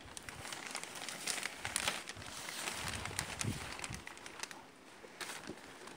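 Clear plastic sheeting crinkling and rustling as a painted plastic scooter body panel is handled and lifted on it, with a few low bumps near the middle.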